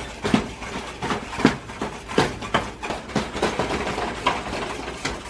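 A wooden spoon turning and pressing a stiff ball of fufu dough in a saucepan, knocking irregularly against the pot about two or three times a second.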